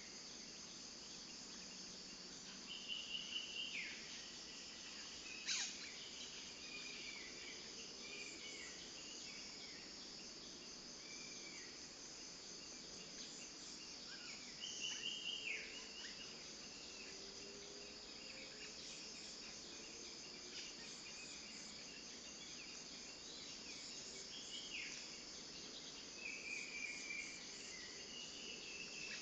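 A bird, the female murai cacing, giving short calls several seconds apart, each a brief high note that drops steeply at the end, over a steady chorus of crickets. One sharp click sounds about five seconds in.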